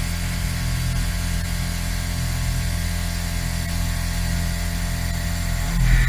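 Exechon XMini machine-tool robot surface-milling titanium: a steady machining hum from the spindle and cutter, growing briefly louder with a higher tone near the end.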